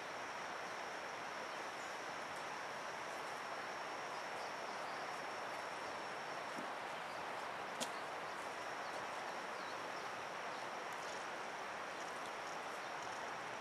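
Steady outdoor background hiss with a faint, steady high-pitched whine, and one sharp click nearly eight seconds in.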